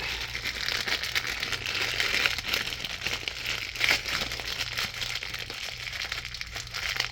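Close-up crinkling and rustling handling noise with many small crackles, over a steady low hum.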